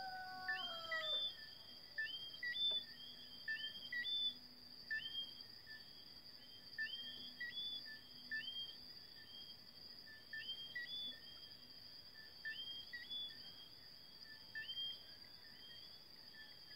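A rooster crows once, briefly, at the start, its note falling at the end, over a night chorus: many short two-note chirps, each ending in a rising whistle, repeating every second or so, with a steady high-pitched insect trill.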